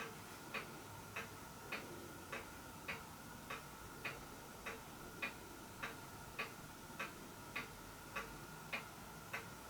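Clock ticking steadily, a little under two ticks a second, over a faint steady whine.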